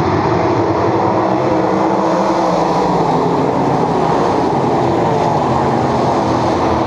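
A pack of World of Outlaws sprint cars, 410-cubic-inch methanol V8s, racing past at full throttle on a dirt oval, their many engines blending into one loud, steady, unbroken roar.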